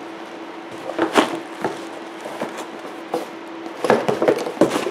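Cardboard boxes being handled: a product box is lifted out of a cardboard shipping carton, knocking and scraping against it with some packaging rustle. There are sharp knocks about a second in and a cluster near the end, over a steady low hum.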